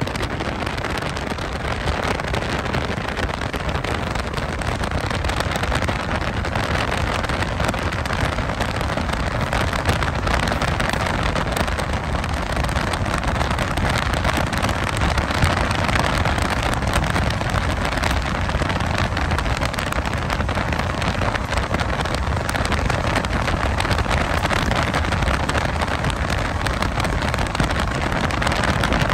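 BNSF freight locomotives' diesel engines running at track speed, heard from a car pacing alongside the train. Mixed in are steady wind rush and road noise.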